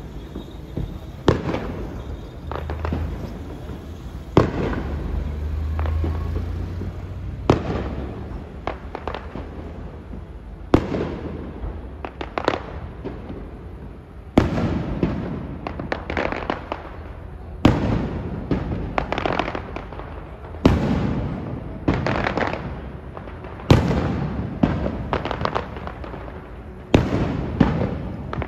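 Aerial firework shells bursting in the sky: a series of sharp bangs, each followed by a rumbling echo. The bangs come every few seconds at first, then faster and more closely bunched from about halfway on.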